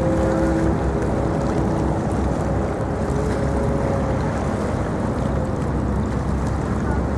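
Steady wind buffeting the microphone over waterfront ambience, with a faint droning tone that fades out in the first couple of seconds.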